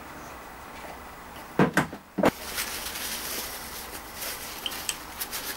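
Two knocks and a sharp click, then the rustling rub of a paper towel wiping the freshly cut thread of a lathe-turned stud, with small ticks as it catches on the thread.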